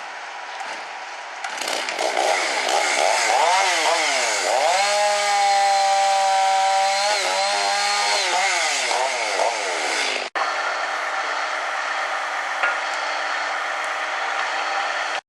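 Two-stroke chainsaw revving up and down and cutting wood, held at a steady high pitch for a couple of seconds mid-cut before easing off. After a sudden break, a steadier engine sound carries on.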